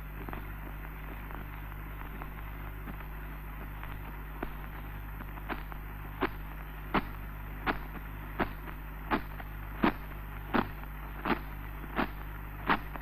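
Hiss and hum of an early sound-film track. From about four seconds in come sharp, evenly spaced strikes, about three every two seconds and growing louder: the rowing beat of a royal barge procession.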